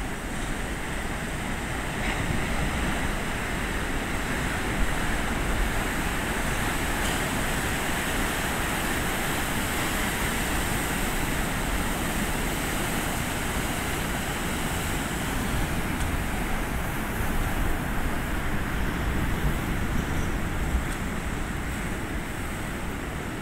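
Heavy Pacific surf breaking on the beach and against a rocky headland: a steady, unbroken rush of crashing waves.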